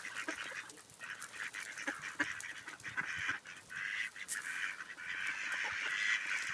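A flock of mallards chattering with many overlapping low quacks while they feed, with short clicks of bills pecking at grain on gravel. The chatter grows louder about four seconds in.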